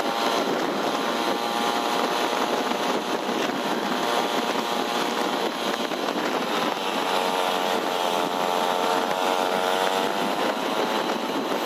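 Steady road and engine noise from riding along a road on a two-wheeler, a continuous rushing with a pitched engine drone that grows stronger between about seven and ten seconds in.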